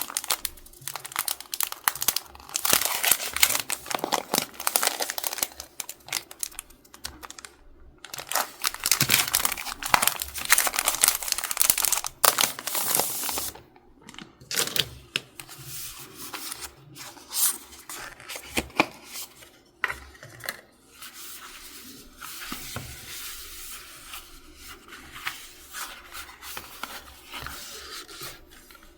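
Stationery packaging being handled and opened: irregular crinkling and tearing rustles, with occasional sharp clicks. The rustling is busier and louder in the first half and turns softer and sparser for the second.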